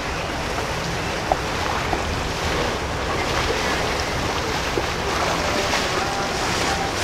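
Power catamaran motor yacht passing at low speed, its engines a steady low drone under the wash of its wake and the inlet water. Wind buffets the microphone.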